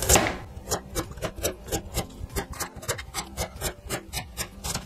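Cleaver slicing a peeled carrot into thin rounds on a cutting board: quick, even chops about four a second, each stroke cutting through the carrot and knocking the board, the first one louder.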